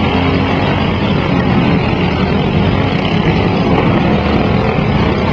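Several riding lawn mower engines running at once in a steady, loud din, with no single crash standing out.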